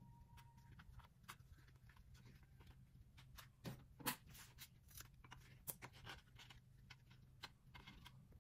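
Faint crinkling and small clicks of banana leaves being handled and folded by hand, over a low steady hum. The handling noises come thickest in the middle, with the sharpest click about four seconds in.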